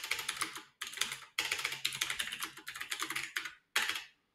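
Typing on a computer keyboard: quick runs of keystrokes broken by a few short pauses.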